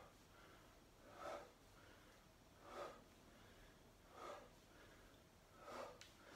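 A man breathing hard with the effort of resistance-band Romanian deadlifts: a short, sharp exhale about every one and a half seconds, four in all.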